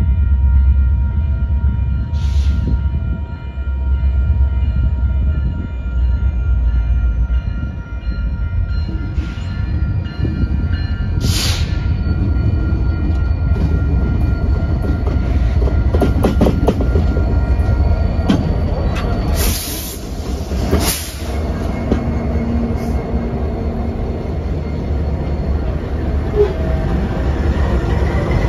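Diesel freight locomotives, a KCS unit leading, approaching and passing close with a steady low engine rumble and the sound of wheels on rail. Several short loud bursts break in, the strongest about two-thirds of the way through.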